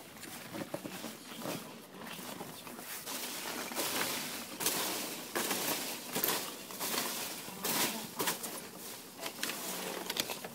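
Foam packing peanuts rustling and squeaking as hands dig through a shipping box, in a run of uneven scrapes that grows busier after the first few seconds.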